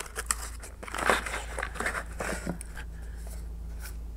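Rustling and light irregular clicks as an HID headlight ballast and its wiring harness are pulled from a cardboard box and handled, over a steady low hum.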